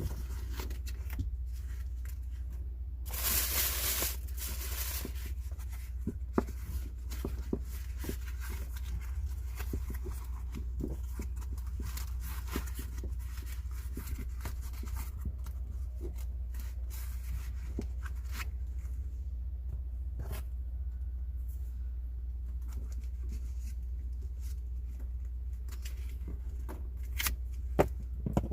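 Hand work on a fitting job: small clicks and knocks of parts being handled, with a tearing, ripping rasp for about two seconds some three seconds in, over a steady low hum.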